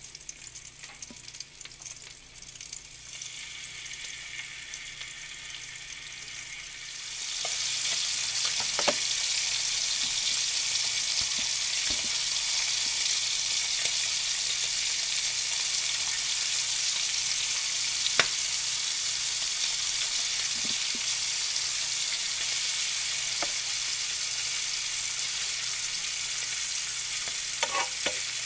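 Bacon sizzling in hot fat in an electric frying pan. The sizzle is quiet at first, then grows suddenly much louder about seven seconds in and stays steady. A few sharp clicks of a fork against the pan come through it.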